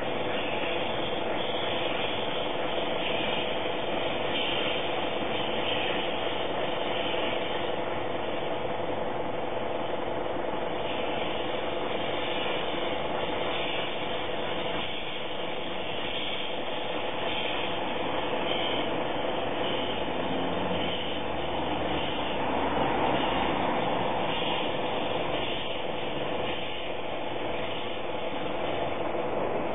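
Abt steam locomotive running slowly in toward the station, a steady mechanical running sound that swells louder for a few seconds about three-quarters of the way through.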